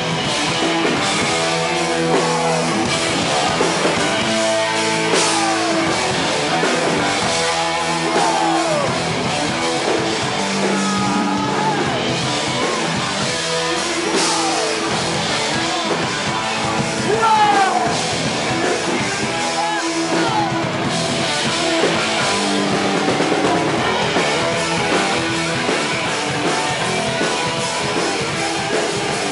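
Live heavy rock band playing loud, with distorted electric guitars, a drum kit and shouted vocals, heard from inside the crowd.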